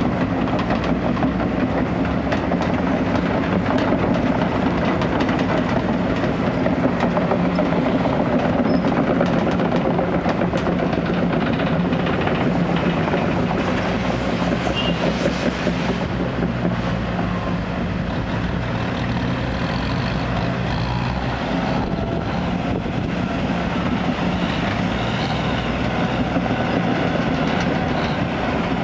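Sumitomo SH210 crawler excavator's diesel engine running steadily under load, with the steel tracks clanking and rattling as the machine travels over dirt.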